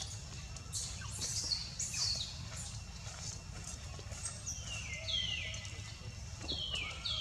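Bird calls: a quick cluster of high, falling whistled notes in the first couple of seconds, then two pairs of lower falling notes in the second half, over a steady low background rumble.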